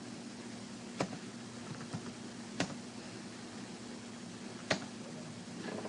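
A few isolated computer keyboard key clicks, spaced irregularly over several seconds, over a faint steady hum and hiss.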